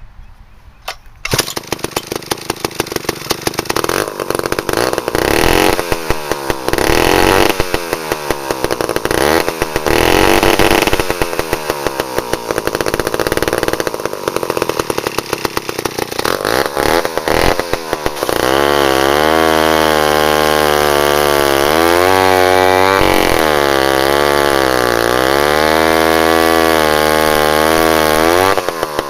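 Antique Klipper two-stroke chainsaw firing up about a second in and being revved up and down unevenly, then held at high revs with a few dips in pitch in the last third. Its clutch is stuck engaged, so the chain turns whenever the engine runs.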